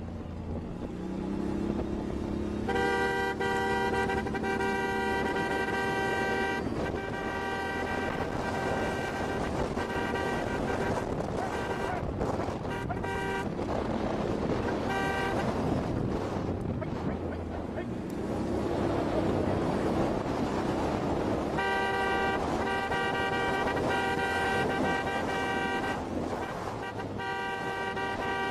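A vehicle horn honking in long, steady blasts with short breaks between them, over the noise of the vehicle driving across rough ground.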